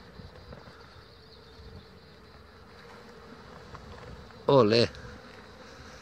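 A swarm of honey bees buzzing, a faint steady hum. A man's loud shout of "¡Olé!" comes about four and a half seconds in.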